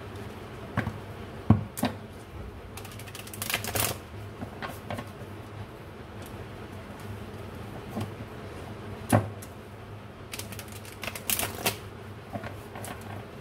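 A deck of tarot cards being shuffled by hand: two quick flurries of riffling cards, one a few seconds in and a longer one near the end, with a few sharp knocks and taps as the deck is handled.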